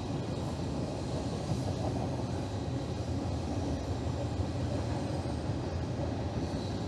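Steady low rumble of a passing train, the noise the fisherman apologises for.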